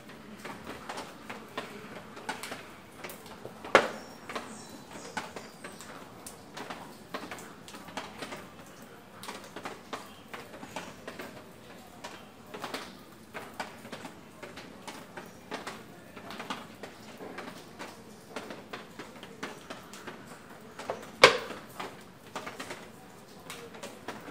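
Checker pieces clacking down on a wooden checkers board: two sharp, loud clacks, about four seconds in and near the end, with fainter scattered ticks and room ambience between.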